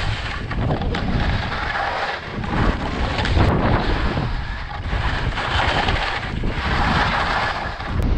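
Skis sliding and scraping over snow, the hiss swelling and fading with each turn, under steady wind buffeting on the camera microphone.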